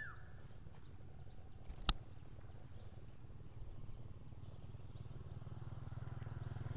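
A steady low motor hum that grows louder near the end, with one sharp click about two seconds in and faint, short high chirps about once a second.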